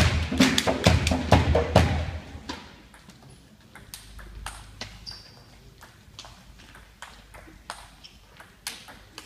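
A loud rhythmic drumbeat with music for about the first two seconds, stopping suddenly. Then a table tennis rally: the sharp ping of the celluloid ball striking the bats and table, several clicks a second with short pauses between exchanges.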